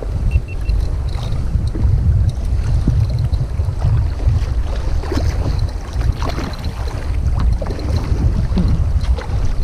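Wind buffeting the microphone in a low, steady rumble, with small waves lapping and splashing against a kayak's hull.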